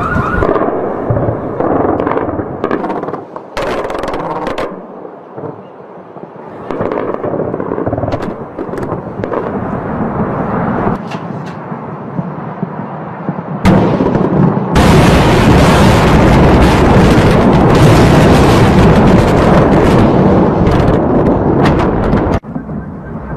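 Bombs exploding and guns firing during an air raid: a run of separate bangs and blasts, then from about midway a loud, unbroken din of blasts and gunfire that cuts off suddenly near the end.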